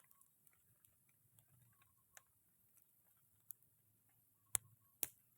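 Near silence broken by scattered faint clicks, then two sharp clicks about half a second apart near the end.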